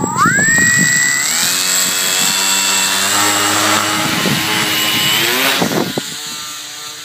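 Electric motor and propeller of an RC motor glider running up to full throttle on takeoff: a whine that rises in two quick steps and holds high, with a rush of propeller air beneath it, then cuts off about five and a half seconds in.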